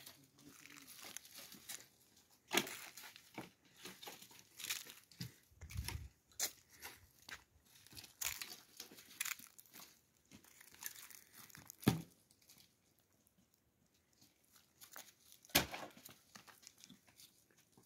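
Irregular crinkling and rustling with scattered sharp snaps, a few of them loud, and a dull thump about six seconds in.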